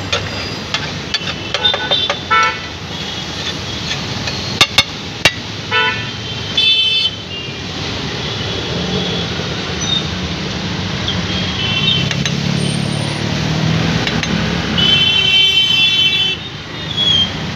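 Busy street traffic with several vehicle horn honks, a longer honk near the end. Sharp metallic clicks of a spatula striking a large iron griddle (tawa) come through now and then.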